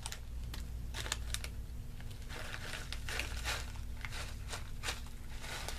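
A granola sample packet crinkling and crackling as it is handled and opened: a string of small, irregular crackles.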